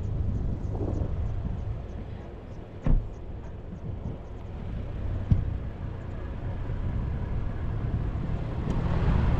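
Low, steady rumble of a vehicle running, with two short knocks about three seconds and five seconds in.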